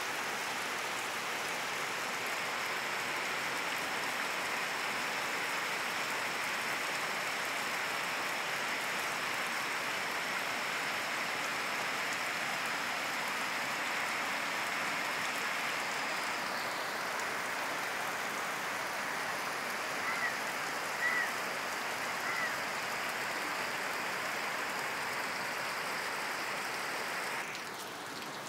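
Heavy rain pouring steadily onto a concrete rooftop and palm trees. Three brief high chirps sound about two-thirds of the way through, and the rain turns softer near the end.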